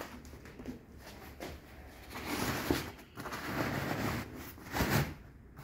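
Fabric sofa cover rustling and rubbing as it is lifted and pulled back by hand, louder from about two seconds in, with a brief stronger rustle near the end.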